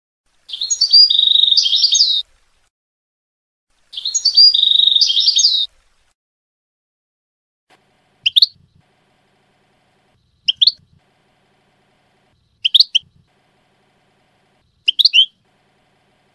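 European goldfinch song in the Levantine ('Shami') style: two twittering phrases of nearly two seconds each, then four short single notes about two seconds apart.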